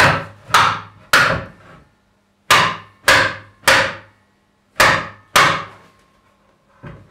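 Hammer blows driving a glued oak batten into the tight sliding dovetail groove of an oak cutting board: eight sharp knocks on wood in groups of three, three and two, then a faint knock near the end. The batten is stiff to drive because the board's wood is under tension.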